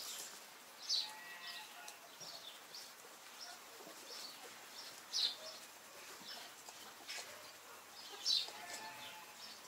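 Small birds chirping in short, high calls scattered throughout, with two faint, more distant animal calls about a second in and near the end.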